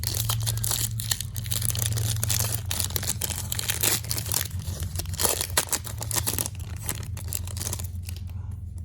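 A sealed foil trading-card pack being torn open, its wrapper crinkling and crackling, over a steady low hum.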